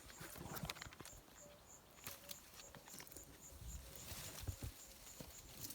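Faint, irregular footsteps of someone walking over dry ground and brush, with soft crunches and thuds, a little heavier about four seconds in.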